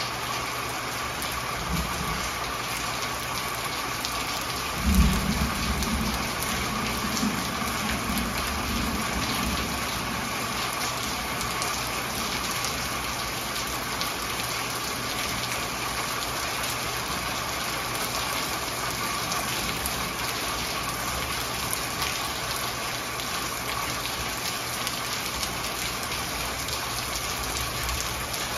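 Steady rain falling, with a roll of thunder about five seconds in that rumbles on for several seconds before fading.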